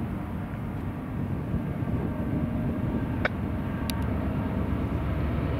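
Steady low drone of an approaching CSX freight train's GE diesel locomotives (AC4400CW and Dash 9-40CW units) working toward the crossing, with two short clicks a little past the middle.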